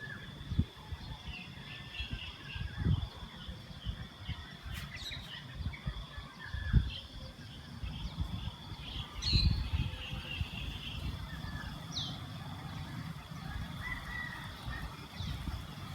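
Birds chirping in short, scattered calls over a steady high-pitched drone, with irregular low rumbles coming and going.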